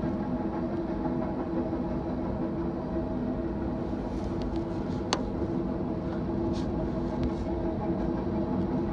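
Norfolk Southern freight train of grain cars rolling past, a steady noise of wheels on rail with a low held drone, and one sharp click about five seconds in.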